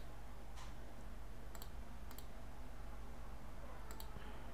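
Computer mouse clicks, a handful of short single clicks spaced a second or more apart, over a faint steady low hum.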